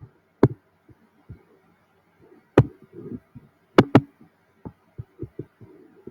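Sharp clicks and light taps, typical of a computer mouse and keyboard being used close to the microphone: three loud clicks spaced a second or more apart, then a quick run of softer taps near the end.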